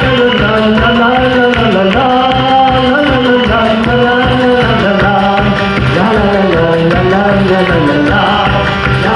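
Live band music: a melody over a steady beat.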